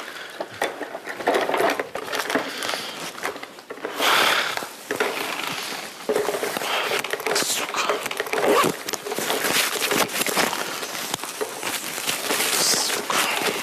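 Indistinct voices and rustling handling noises in a small room.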